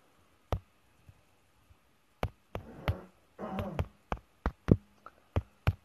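A dozen or so sharp, irregular clicks and taps, with two short muffled rustling stretches in the middle.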